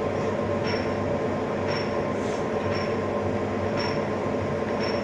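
Kuraki hollow-spindle engine lathe running under power, a steady geared hum with a short high tick about once a second.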